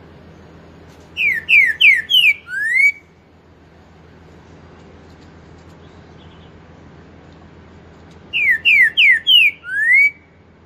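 Green-winged saltator (trinca-ferro) singing its 'pantaneiro' four-note 'boi' song twice: four quick falling whistled notes, then a longer rising note as the 'boi' ending.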